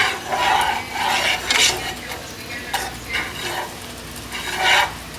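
Butter and minced garlic sizzling in a pot while a utensil stirs and scrapes against it in several irregular strokes.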